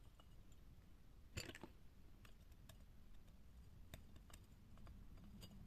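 Faint small clicks and taps of wire leads being fitted into a circuit board's screw terminal and a screwdriver working the terminal, the loudest cluster about a second and a half in. A faint low hum begins near the end.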